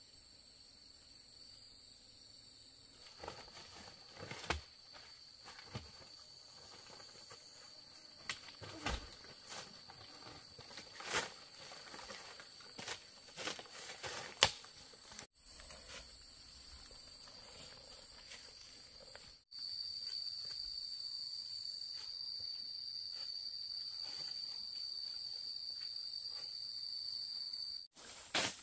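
Insects, crickets or cicadas, shrilling in one steady high continuous tone, with scattered light knocks and rustles over it. The shrilling becomes suddenly louder about two-thirds of the way through.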